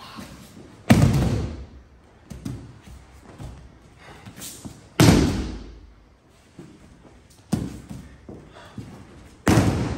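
A body thrown onto padded dojo mats in aikido breakfalls: three loud thuds about four seconds apart, each fading within half a second, with softer thuds in between.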